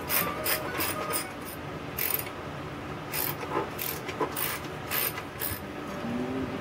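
Socket ratchet wrench clicking in short, irregular runs as the bolts of a Kohler engine's sheet-metal cooling shroud are turned loose.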